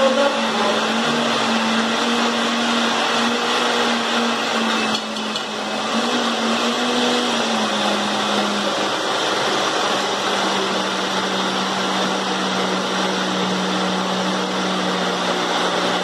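Countertop blender running steadily as it blends carrot cake batter, with a steady motor hum whose pitch drops a little about eight seconds in.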